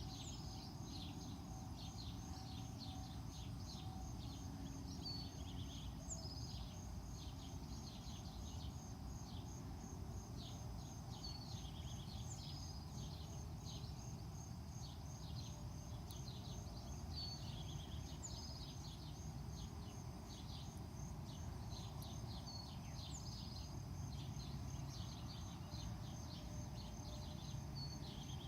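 Outdoor ambience: a bird repeats the same short phrase of quick high chirps about every six seconds, over a steady high insect-like trill and a low rumble of background noise.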